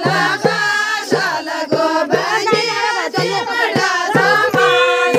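A group of women singing a Kumaoni chanchari folk song in chorus over a steady, quick drum beat.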